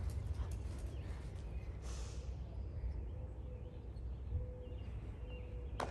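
A horse blows out once through its nostrils about two seconds in: a short snort over a low, steady rumble.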